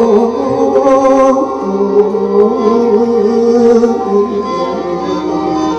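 Live mor lam music: steady held chords with a wavering melody line over them, between the sung verses of the story.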